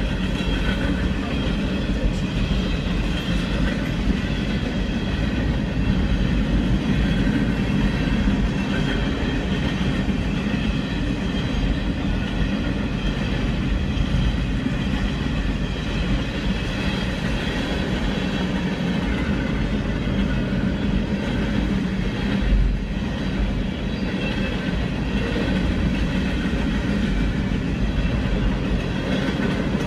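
Freight train of covered hoppers and boxcars rolling past close by, a steady rumble of steel wheels on the rails that goes on without a break, heard from inside a car.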